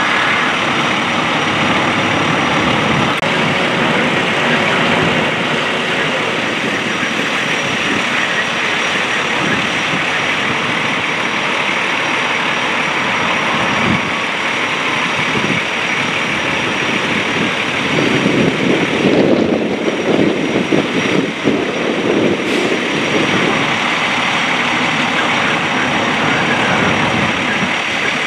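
Fire engine's engine running steadily, a continuous loud mechanical noise, louder for a few seconds about two-thirds of the way through.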